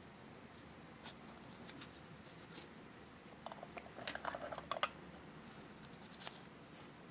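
Soft clicks and taps of fingers handling a miniature cardboard food box and a plastic toy refrigerator, with a quick cluster of clicks from about three and a half to five seconds in over faint room tone.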